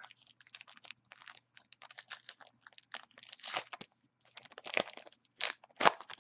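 A 2014 Topps Allen & Ginter card pack's crimped wrapper being torn open and crinkled in the hands: a quick run of dry crackles, the loudest tearing sounds near the end.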